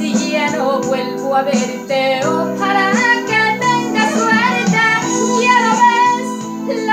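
A woman singing a Spanish ballad over a recorded instrumental backing track, her voice sliding and holding notes above steady chords.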